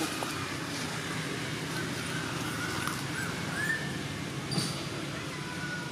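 Steady low outdoor background noise with a few faint, short, high chirping calls and a brief click about four and a half seconds in.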